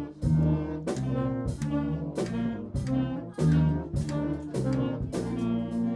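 A fifth-grade school band playing brass and wind instruments together, a tune in held notes that change about every half second.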